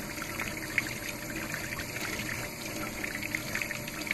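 Water running from a tap and splashing over a gutted trout as it is rinsed under the stream to wash out the blood.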